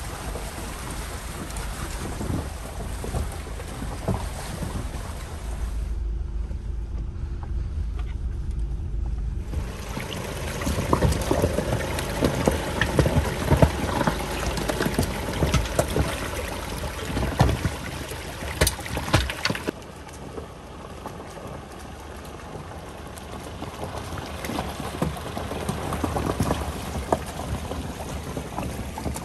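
Hyundai Santa Fe SUV driving through a shallow, stony stream: water splashing and churning around the tyres, with stones knocking under them, over a low vehicle rumble. The splashing and knocks are loudest in the middle, giving way to a quieter, even rush of water.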